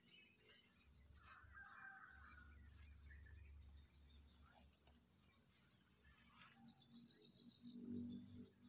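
Faint, steady high-pitched trilling of insects, with a short run of bird notes near the end.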